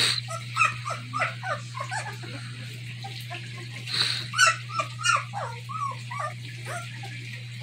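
Two-week-old German Shepherd puppies whimpering and squeaking: many short, high cries that rise and fall, coming in two bouts, with a steady low hum underneath.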